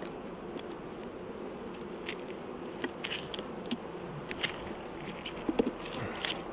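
Honeybees buzzing steadily around an open hive, with many short sharp clicks scattered through.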